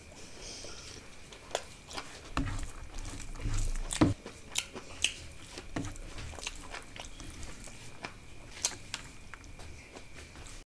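Close-miked eating sounds: a person chewing rice and curry with wet mouth clicks and smacks, irregular throughout and busiest around two to four seconds in, with one sharp click at about four seconds.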